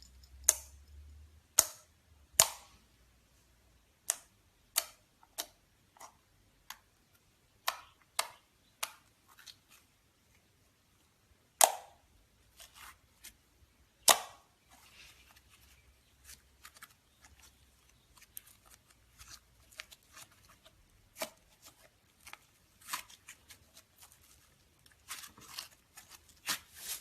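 Slime being worked by hand, its trapped air pockets popping in sharp clicks scattered irregularly about once a second, with quicker runs of smaller pops near the end.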